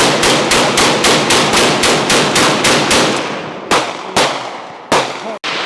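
Rapid fire from a 300 Blackout gun with a binary trigger, which fires on both pull and release: an even string of loud shots at about five a second for some three seconds, then three slower single shots.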